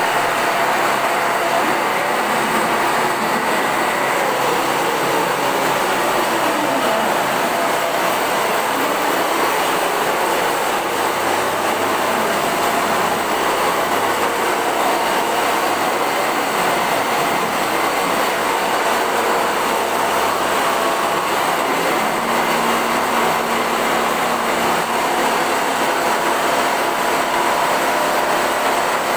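Frame quilting machine running as it stitches a quilt: a steady mechanical noise, with a motor pitch that slides down and back up between about four and ten seconds in.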